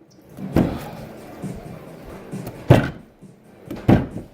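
Three sharp thumps on a hard surface, about a second or two apart, the second the loudest.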